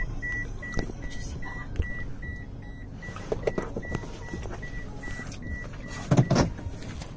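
A car's warning chime beeping steadily at one pitch, about two and a half beeps a second, stopping about six seconds in, followed by a couple of loud bumps inside the car.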